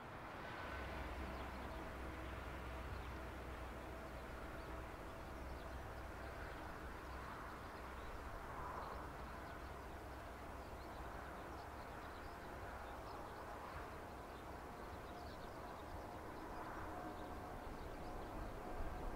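Distant Airbus A340-600 on its takeoff roll, its four Rolls-Royce Trent 500 engines at takeoff power heard as a steady low rumble with faint whining tones, growing a little louder near the end.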